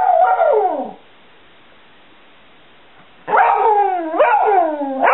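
Border Collie mix dog howling. A falling howl ends about a second in. After a pause a second run of howls starts, each swooping up and then sliding down in pitch.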